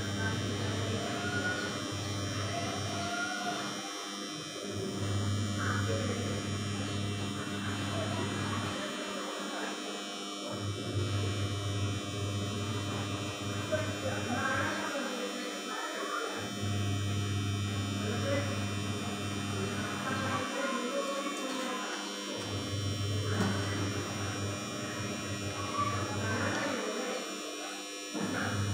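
A low steady hum that breaks off for about a second every four to five seconds, with faint voices in the background.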